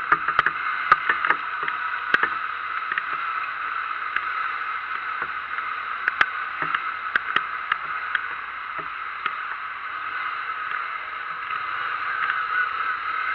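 Steady rain, with irregular sharp taps of drops striking close by.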